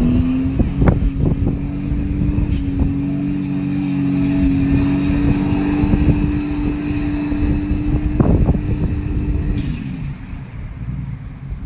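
Ford BA Falcon XR6 Turbo's turbocharged straight-six held at high revs in a burnout, running loud and steady with the pitch creeping slowly upward, then falling away as the revs drop near the end.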